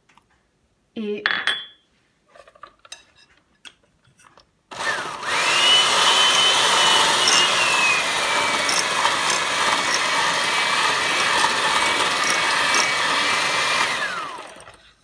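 Electric hand mixer with twin wire beaters switched on about five seconds in, beating whipped cream mixed with coffee: a steady motor whine that jumps up in pitch at start-up, settles slightly lower, then winds down near the end. A few brief handling noises come before it.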